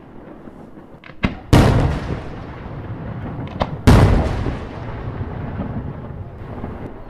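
Aerial firework shells bursting: two loud booms about two and a half seconds apart, each just after a smaller sharp crack and each followed by a long rumbling echo that dies away.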